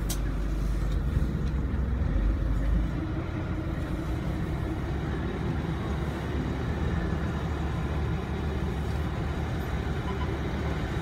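Canal tour boat's engine running steadily, a low even rumble.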